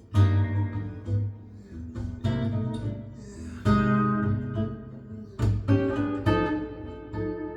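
Instrumental passage of a song: acoustic guitar playing plucked notes and strummed chords over a deep bass line, with several sharp chord attacks.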